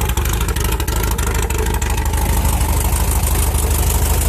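Volkswagen Type 3 Squareback's air-cooled flat-four engine idling steadily, with a few light clicks in the first two seconds.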